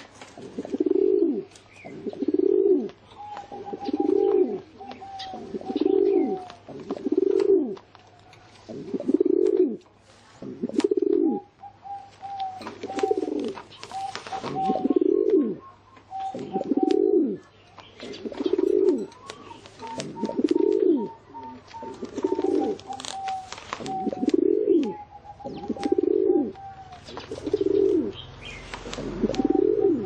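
Rock pigeon cooing: a steady series of low, rising-and-falling coos, about one every couple of seconds, with a fainter, higher run of short notes between many of them.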